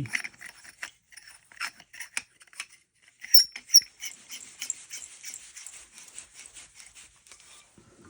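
Aluminum staff sections clinking together, two sharp metal clinks, then a quick run of scratchy clicks as one threaded section is screwed into the next.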